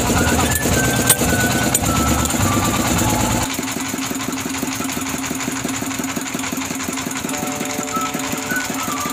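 A fishing boat's engine running with a rapid, steady knock. The sound steps down in level about three and a half seconds in.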